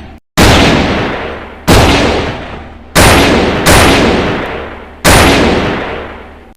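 Hand-cannon revolver sound effect: five heavy shots, each with a long echoing tail that dies away. The fourth shot comes quickly after the third.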